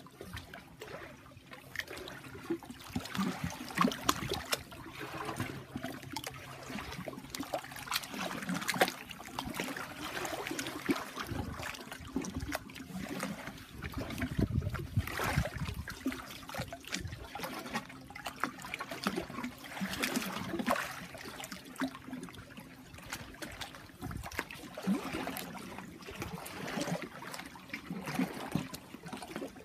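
Shod feet sloshing and splashing through a shallow, fast-flowing stream, with uneven surges of splashing over the steady rush of the water.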